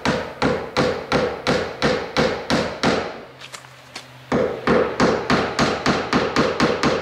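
A hammer driving nails into the frame of a sliding glass door, struck in quick even blows: about four a second, a break of about a second a little past three seconds in, then a faster run of about five a second.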